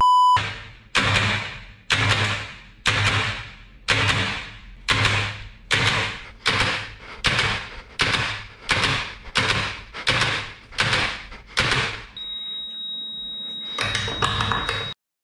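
Row of small push-pull solenoids, switched by an Arduino relay board, firing in turn: sharp clacks about two a second, each with a short ringing tail. The clacks stop near the end and a steady high-pitched tone runs for about three seconds.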